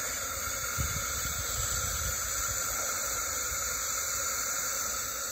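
Propane gas hissing steadily out of the opened valve on the vaporizer's brass torch, bleeding off the gas pressure while the one-pound propane tank is changed. A few light handling knocks sound about a second in.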